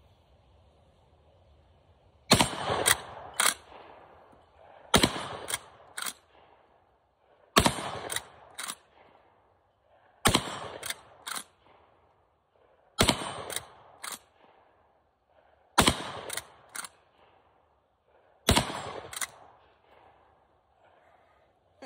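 Cimarron 1887 lever-action 12-gauge shotgun fired seven times, one shot about every two and a half to three seconds. After each shot come two sharp clacks as the lever is worked open and shut to eject the empty hull and chamber the next shell. The gun cycles all seven rounds without a jam.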